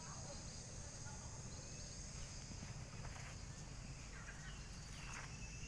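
Faint outdoor ambience: a steady high-pitched insect drone with low rumble on the microphone, and a few faint chirps in the second half.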